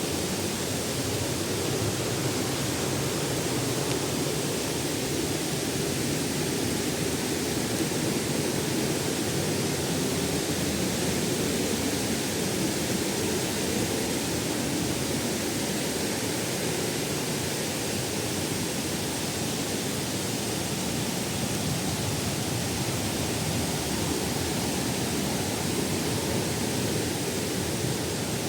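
Waterfall: water pouring over rock, a steady, unbroken rushing.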